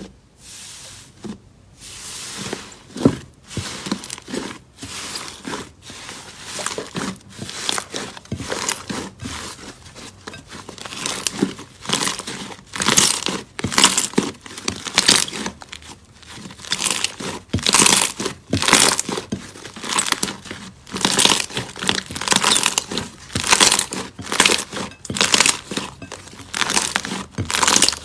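Slime being squished, stretched and folded by hand, giving wet crackling and popping in repeated surges about once a second, louder in the second half.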